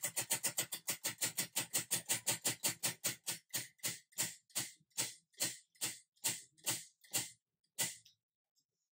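Tabletop prize wheel spinning down: the pointer clicks over the rim pegs, starting at about five clicks a second and slowing steadily to about two a second. The last click comes just before the wheel stops, near the end.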